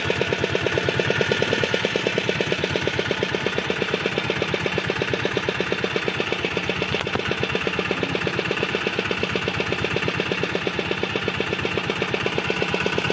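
Fishing boat's engine running steadily with a fast, even pulse.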